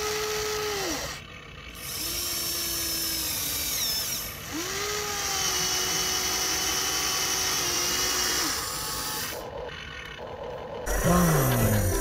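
Small electric motor of a remote-control toy construction vehicle whining in three runs, each spinning up, holding a steady pitch and winding down, the longest about four seconds. Music starts near the end.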